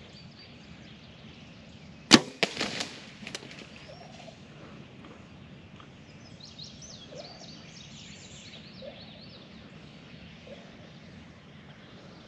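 A compound bow shot: one sharp crack of the string release and arrow strike about two seconds in, followed by a brief flurry of smaller knocks and rattles.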